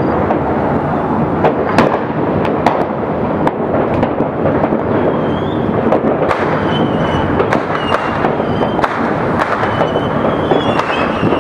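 Many fireworks and firecrackers going off at once, merging into a continuous crackling rumble of overlapping bangs with frequent sharper pops. Thin, high whistles join in from about five seconds in.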